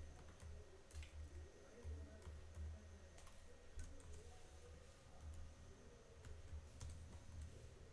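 Faint, irregular key clicks of a computer keyboard being typed on.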